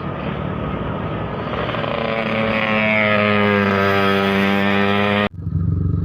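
Bus going by with its engine running. A steady pitched tone swells from about two seconds in and is cut off abruptly a little after five seconds.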